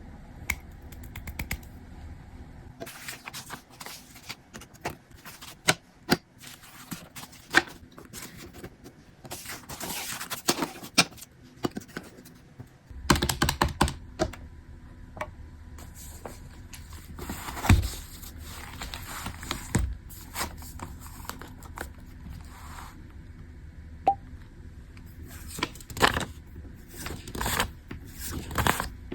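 Irregular light clicks and taps, with a few louder knocks, like small objects being handled or keys being tapped.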